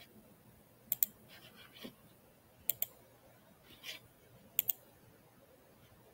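Computer mouse button clicking three times, each a quick double click, with faint soft rustles in between.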